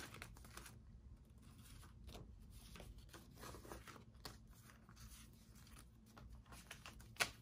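Faint rustling and crinkling of paper banknotes being counted and slipped into a binder's cash envelope, with one sharper crackle near the end.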